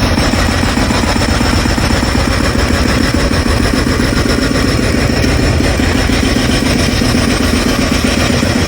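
Roadworks machinery breaking up the ground, running loud and steady with a fast continuous rattle.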